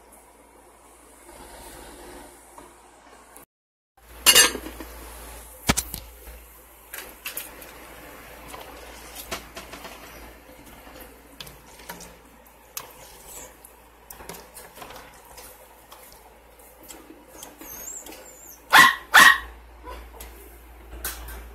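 A dog barking: a bark about four seconds in, then two barks in quick succession near the end. Small knocks and clicks come in between.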